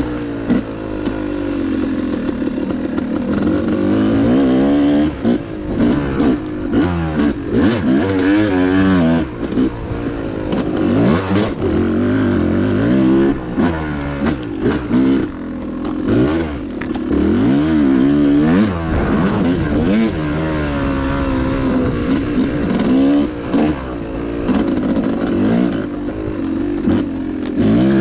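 Yamaha YZ250X two-stroke single-cylinder dirt bike engine revving up and dropping back again and again as the throttle is opened and shut over the track, with short dips in level between pulls.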